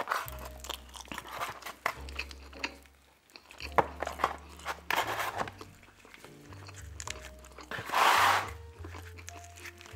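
Close-miked chewing and mouth smacking on a mouthful of stuffed-crust pepperoni pizza, with many small wet clicks. Background music with stepped low bass notes plays underneath, and a short loud rustle comes about eight seconds in.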